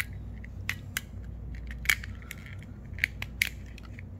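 Sharp plastic clicks and snaps from a Samsung smart remote's case as a pry tool works its snap locks, about half a dozen spread over the few seconds, the loudest about two seconds in.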